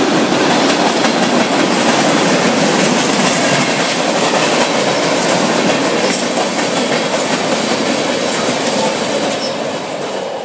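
A freight train of tank cars rolling past, its steel wheels clattering on the rails in a steady, loud rumble. The sound fades near the end as the last cars move away.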